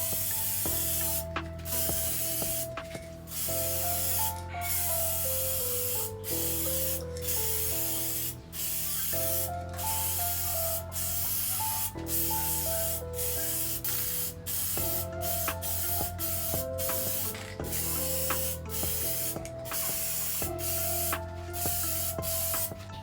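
Spray paint hissing out in long bursts with brief pauses between them, as the bike is repainted.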